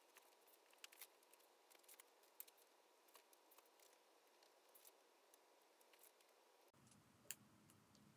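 Near silence with faint, scattered soft clicks and crackles from a wood fire burning in a wood stove. About two-thirds of the way through, a faint low background noise comes in, followed by one sharper click.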